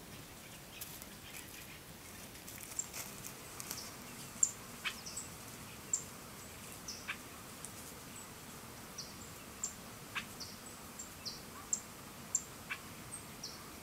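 Small birds chirping in woodland: many short, high chirps, one or two a second, over a faint steady background hiss.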